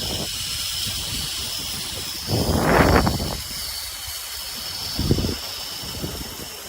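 Zipline trolley pulleys running along the steel cable with a steady high whir, and wind rushing over the microphone in gusts, the strongest about halfway through.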